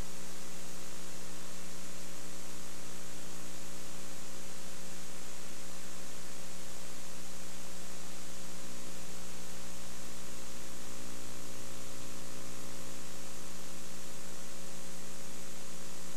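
Steady electrical mains hum: several fixed tones over an even hiss, flat and unchanging. The commentary and field sound have dropped out, leaving only the hum of the recording chain.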